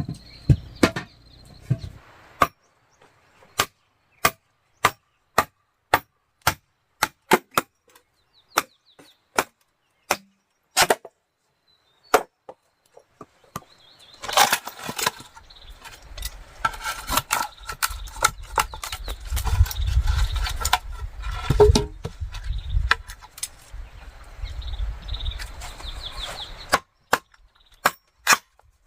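Repeated sharp strikes of a hand tool on wood or bamboo, about two a second. From about halfway through they give way to denser knocking and rustling over a low rumble, and single strikes return near the end.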